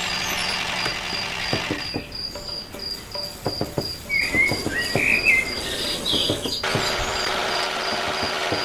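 Crickets chirping in an even, pulsing trill, with a few short bird chirps near the middle and scattered light clicks. About seven seconds in, a steady motor hum comes in.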